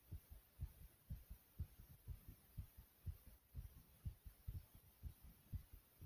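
A person's heart beating fast and strong after jumping in place: low double thumps, a strong beat and a fainter one, about two a second.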